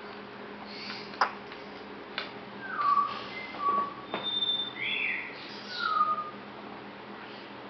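Young African grey parrot giving a run of short whistles and squeaky chirps, several sliding in pitch, for about four seconds starting a little under three seconds in. A few sharp clicks come before and among them.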